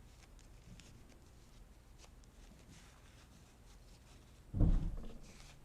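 Faint handling rustles and small clicks, then a single dull, low thump about four and a half seconds in that fades quickly.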